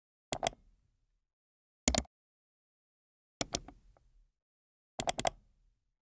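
Computer mouse button clicks, crisp and dry, coming in short groups of one to four clicks about every one and a half seconds.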